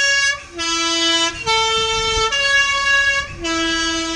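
Swiss PostBus three-tone horn sounding its call of C sharp, E and A, played twice in a row, each note held just under a second.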